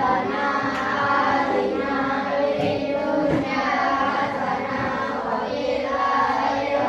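A class of schoolchildren reciting a closing prayer together in unison, a continuous chant of many young voices.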